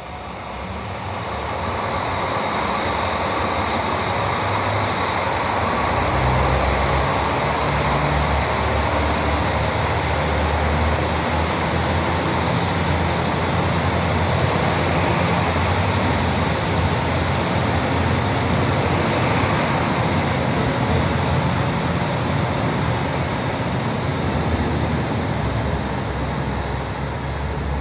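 JR Hokkaido KiHa 40 and KiHa 150 diesel railcars moving off past the platform. The diesel engines run under load with wheel and rail noise. It grows louder over the first two seconds, a low engine rumble strengthens about six seconds in, and the noise then holds steady.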